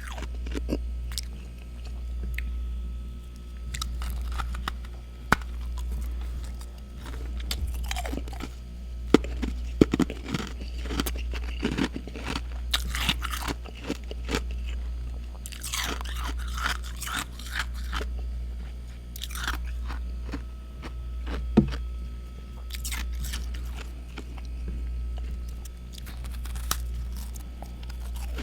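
Close-miked chewing and crunching of freezer frost, with sharp crunches scattered irregularly throughout over a steady low hum.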